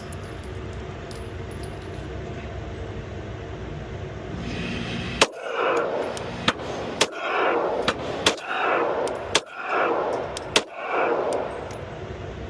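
Glock 47 pistol firing a string of shots, roughly one a second from about five seconds in, each shot followed by a brief ringing smear.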